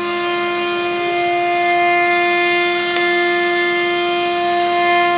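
CNC router spindle running at constant speed, a steady high whine over the hiss of the bit carving into wood. A faint tick about three seconds in.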